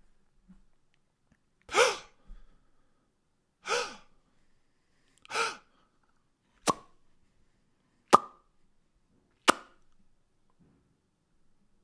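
Vocal sound effects made with the mouth: three short breathy voiced bursts about two seconds apart, then three sharp mouth pops about a second and a half apart.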